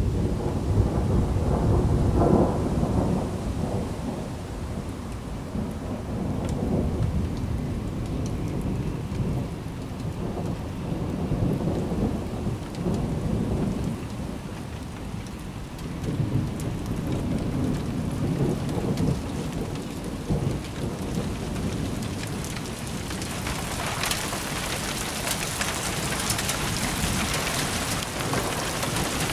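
Thunder rumbling in long rolling swells under falling rain; about two-thirds of the way through the rain grows heavier into a dense hiss.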